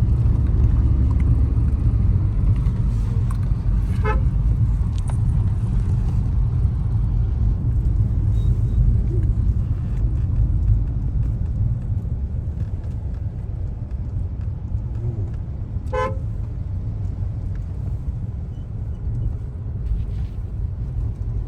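Steady low rumble of road traffic with two short vehicle horn toots, one about 4 seconds in and another near 16 seconds.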